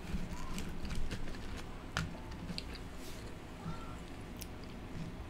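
Close-miked chewing with small wet mouth clicks, and fingers rustling through French fries in a paper carton.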